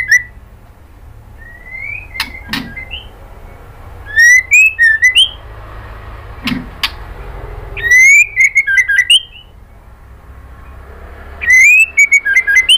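White-rumped shama (murai batu) singing loud bouts of whistled song, each a rising whistle followed by a quick run of sharp notes. There are about four bouts, a few seconds apart, with short pauses between.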